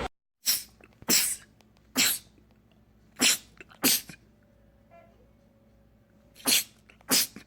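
A man sneezing seven times in quick succession, short sharp sneezes, with a longer pause before the last two.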